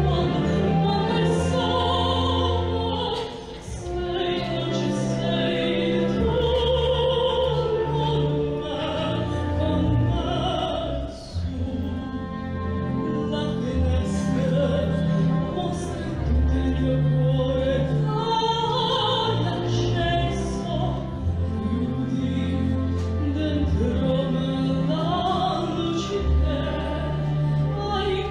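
A woman singing a classical, operatic-style song into a handheld microphone, holding long notes with vibrato, over instrumental accompaniment.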